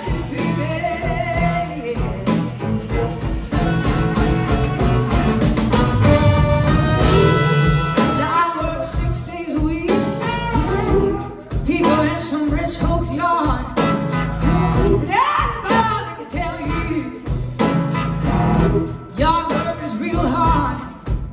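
A live blues-rock band playing a slow blues song: electric guitars, drums, bass and keyboards with a horn section, under a woman's lead vocal.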